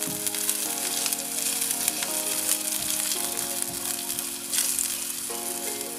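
Minced garlic and dried Provençal herbs sizzling gently in olive oil in a frying pan over lowered heat, stirred with a silicone spatula. Soft background music plays under the steady hiss.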